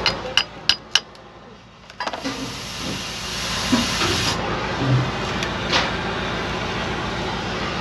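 Four quick, sharp metal-on-metal strikes in about a second: a hammer tapping a new cross joint into the yoke of a truck's propeller shaft to seat its bearing cups. A few fainter knocks follow over a steady hiss.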